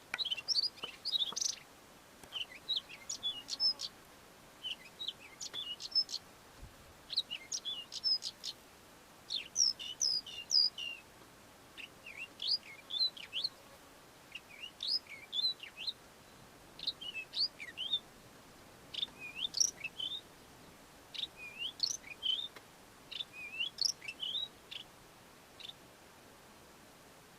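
Melodious lark singing: a long run of short, quick phrases of high chirps and whistles with brief pauses between them. The song is full of mimicked calls of other local bird species.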